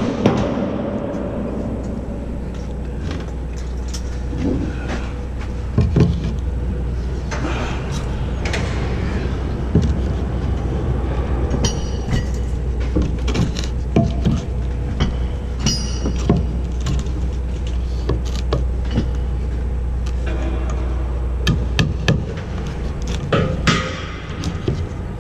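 Irregular hammer blows and knocks of formwork being put together, over a steady low rumble.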